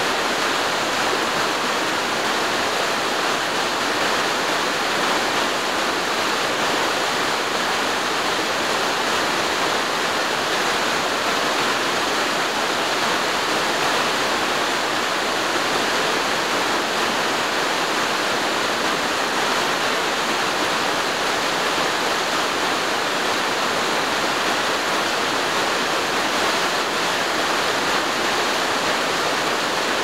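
Two small waterfalls splashing down into a rocky mountain stream: a steady, unbroken rush of water that does not change in level.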